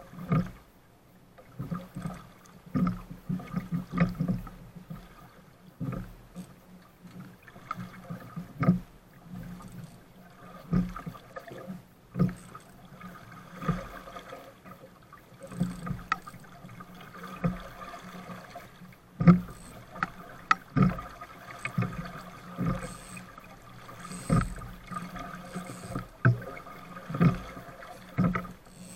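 Small sailboat beating through choppy water: waves slap and splash against the hull, with irregular knocks and thumps about once or twice a second, picked up by a camera fixed to the boat.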